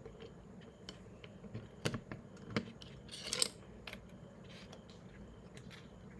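Small, irregular clicks and rustles of jumper wires being handled and their female connectors pushed onto a Raspberry Pi 3's GPIO header pins, the loudest about two and three seconds in.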